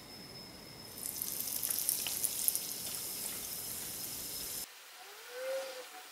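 A battered corn dog deep-frying in hot oil in a small saucepan. The oil sizzles with a hiss and scattered crackles that start about a second in, then the sizzle cuts off suddenly near the end.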